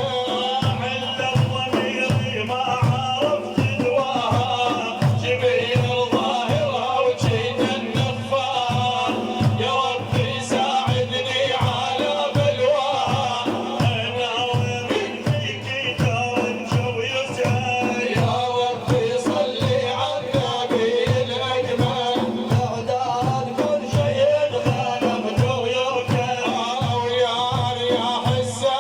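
Religious praise music: hand-beaten frame drums keep a steady beat, a little under two strokes a second, under a held melodic line.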